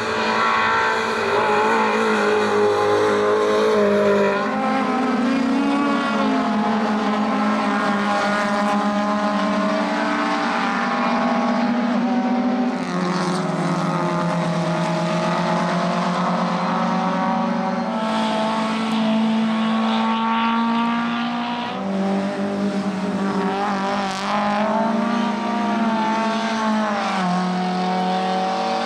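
Several 1300 cc racing touring cars, Lada 2105 and 2101 saloons, running hard through a corner and up a straight. Their four-cylinder engines overlap, each climbing in pitch and dropping sharply at the gear changes.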